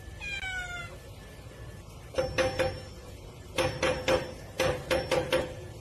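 A cat gives one short falling meow, then paws at a door's metal bolt and padlock, rattling them in three bursts of quick ringing metallic clanks.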